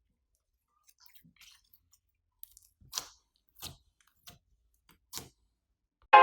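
Slime being squeezed and mixed inside a plastic bag: a handful of short squishes about a second apart, with faint clicks before them. Piano music starts just at the end.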